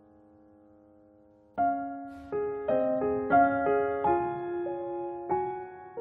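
Background piano music: a faint held chord, then about a second and a half in a louder piano melody starts, each note struck and fading away.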